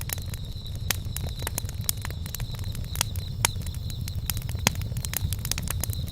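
Wood fire crackling: irregular sharp pops over a low steady rumble.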